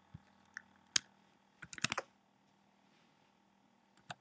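Computer keyboard keystrokes as a terminal command is entered: a few single key presses, a quick run of keys a little under two seconds in, then two more presses near the end.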